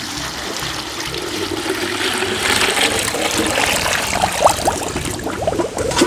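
Water poured from a large metal pot into a plastic bucket, a steady splashing pour, with short rising gurgles in the last couple of seconds as the pot is tipped up to empty.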